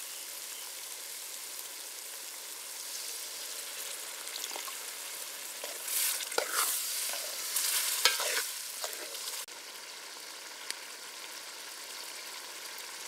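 Onion, tomato and green-pea masala sizzling and bubbling in a metal pan. Between about 4 and 9 seconds in, a steel ladle stirs it, scraping against the pan several times.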